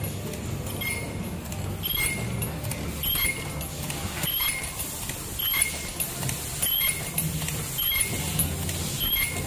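Automatic face-mask earloop welding machine running in its working cycle: a short, high squeak with a click about every 1.2 seconds over a steady low hum. The rhythm matches its rated output of about 50 masks a minute, one squeak per mask.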